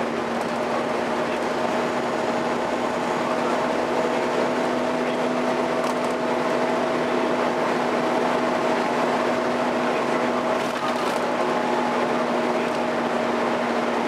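Volvo B7TL double-decker bus under way, heard from inside the upper deck: a steady drone of engine and road noise with a held whine on two steady pitches, the vacuum-cleaner-like 'hoover' of its cooling fan.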